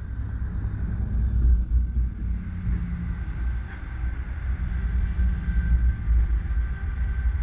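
Car running and rolling slowly, a steady low rumble of engine and tyres picked up by a camera mounted on the outside of the car.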